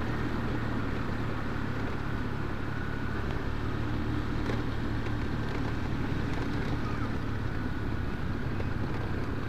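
Motorcycle engine running steadily while riding at low speed, with road and wind noise on the microphone.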